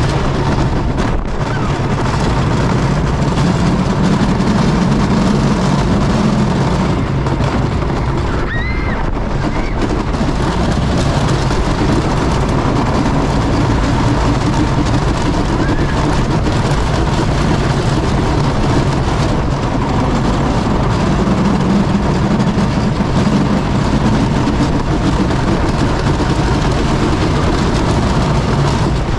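Wooden roller coaster train running at speed on wooden track: the wheels give a steady, loud rumble and clatter.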